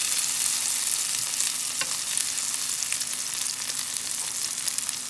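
Batter-coated zucchini slices sizzling steadily in hot oil in a frying pan, with a few faint clicks of a spoon as the slices are turned over.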